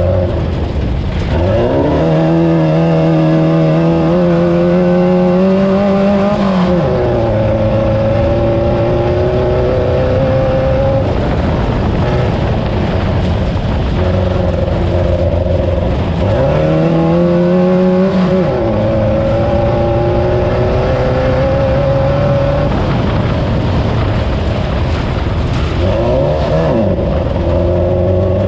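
Class 9 off-road race car's air-cooled VW engine running hard. Its revs climb steeply about a second and a half in, hold high for about five seconds and drop back. They climb again about 16 seconds in for a couple of seconds, and briefly near the end.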